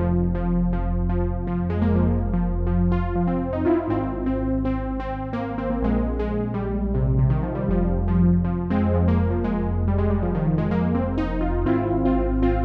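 Sequential Take 5 analog polysynth playing a preset: a fast, even run of short plucked notes, about four a second, over held bass notes that change every second or two.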